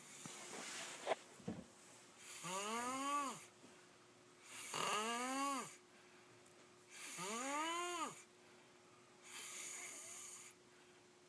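A boy snoring in a steady rhythm, one snore about every two and a half seconds. Each snore is a drawn-out tone about a second long that rises and then falls in pitch, with a breathy hiss, and the one near the end is breathy with no tone. A faint steady hum runs underneath, and there is a short click about a second in.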